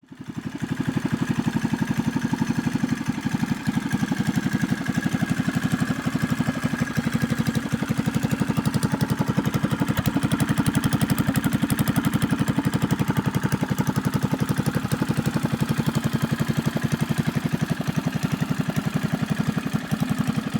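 Pocket bike's 212cc single-cylinder engine idling steadily, with an even, rapid beat of exhaust pulses.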